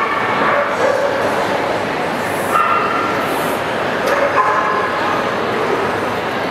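A dog yipping and whining in short calls, three times, over a steady background hubbub.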